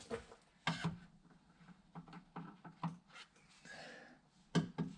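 Scattered light clicks and taps of hand tools and small metal parts being handled at a car door, with a brief soft rustle partway through.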